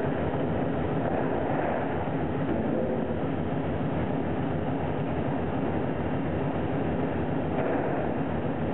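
Stainless-steel shrimp-handling machinery running, with a steady, dense rattling clatter as shrimp move through it. The line includes conveyors, a shaker and dosing hoppers that pour into plastic crates.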